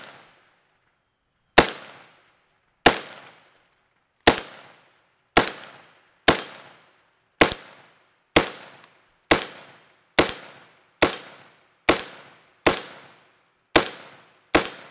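Lead Star Grunt III AR-15 rifle with a muzzle compensator firing 5.56 rounds in fourteen single shots at a steady pace of about one a second. Each shot has a short echoing tail.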